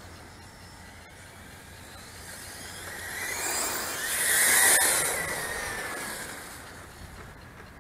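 Radio-controlled model car passing close by. A whine with a hiss swells, peaks about halfway through and fades, its pitch dropping slightly as it goes past.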